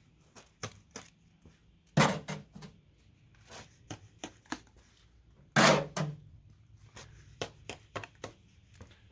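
Steel trowel scraping and knocking as mortar is scooped and spread, a string of sharp clicks and scrapes with two louder knocks, about two seconds in and near the middle, each followed by a short low ring.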